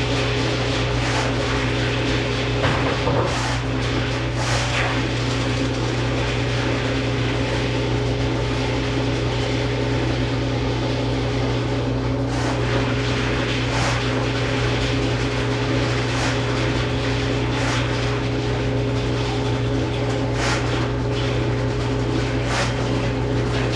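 Electric drain-cleaning machine running steadily with a low motor hum, while the cable turns in the drain line and gives brief clicks and rattles every second or two.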